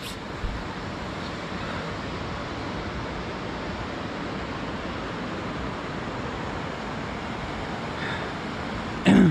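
Steady rushing of the Kali river's fast-flowing water, an even noise without change.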